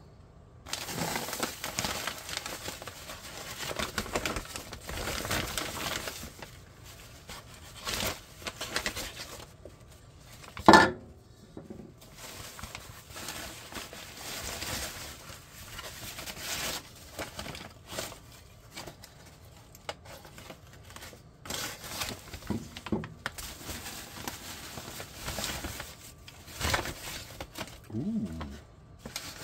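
Brown paper grocery bag crinkled and rustled open by hand, then a hand digging through the dry wood shavings packed inside it, in irregular bursts of crinkling and rustling. One louder, sharper crackle about eleven seconds in.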